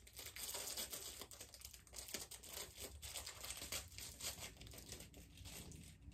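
Faint crinkling and tearing of a gummy candy's plastic wrapper as it is forced open, a dense run of small irregular crackles.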